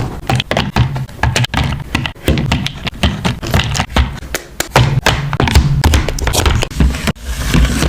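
Close-miked handling of journaling supplies on a desk: a busy run of quick taps, knocks and dull thumps, many in close succession.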